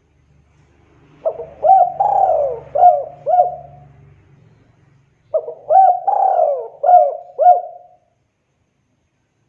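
Spotted dove singing: two cooing phrases of about five notes each, one starting about a second in and the other about five seconds in.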